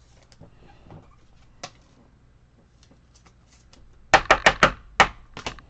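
Sharp taps and clicks from handling trading cards: a few faint ticks, then a quick loud burst of four taps about four seconds in and two more near the end.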